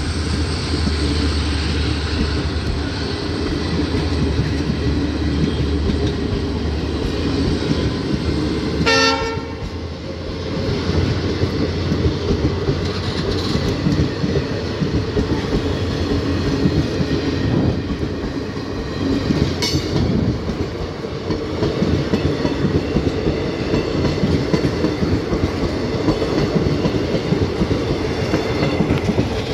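Indian Railways passenger coaches rolling past at close range: a steady rumble with the wheels clacking rhythmically over the rail joints. A short horn sounds about nine seconds in, and there is one sharp clank near the twenty-second mark.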